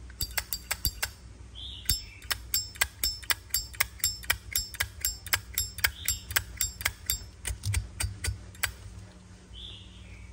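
Metal lid of a slim Zippo lighter flicked open and snapped shut over and over, a quick run of metallic clicks at about four a second that stops near the end.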